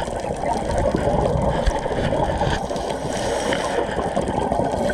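Scuba regulator exhaust bubbles heard underwater, a steady crackling bubbling with most of its weight in the low range.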